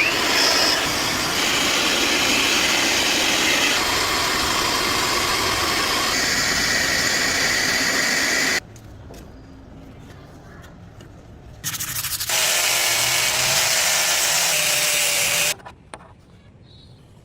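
Power grinder working steel in two runs: a long steady grind of about eight seconds that cuts off suddenly, then after a short pause a second, shorter grind that also stops abruptly.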